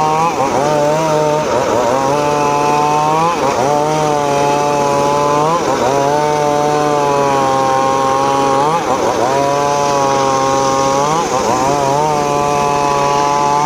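Homemade engine-driven circular saw cutting teak wood, its engine running hard with the pitch sagging briefly and recovering every two to three seconds as each cut loads it.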